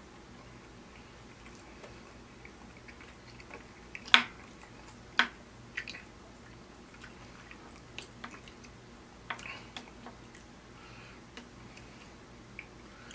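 Close-miked eating of steak and baked beans: chewing and wet mouth sounds, with scattered sharp clicks and taps of a plastic utensil against the plate. The two loudest clicks come about four and five seconds in.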